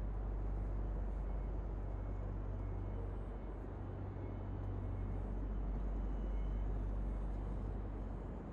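Steady low rumble of expressway traffic and heavy vehicles, with faint short high tones about once a second in the first half.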